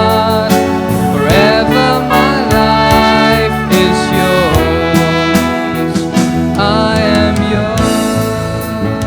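Instrumental worship music: a lead melody that slides between notes, played over sustained backing chords and a bass line.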